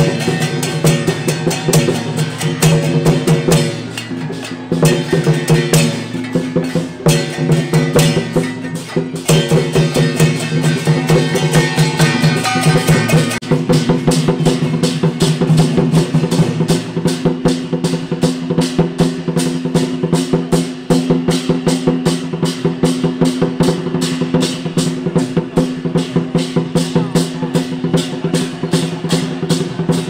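Temple procession music: drums and percussion beating a fast, even rhythm over several held melodic tones, the beat growing denser about halfway through.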